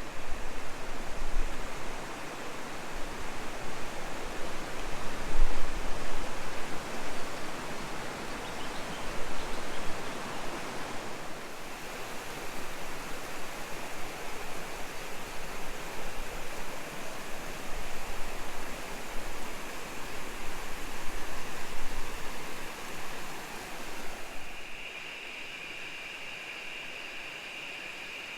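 Rushing river water: an even hiss that swells and fades, with low rumbles of wind on the microphone in the first part. About 25 seconds in it gives way to a quieter, steadier hiss with a thin high tone.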